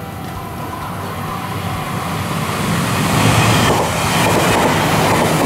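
A Meitetsu 5000-series electric train approaching and passing close by. Its running noise builds for about three seconds, then stays loud as the cars go past.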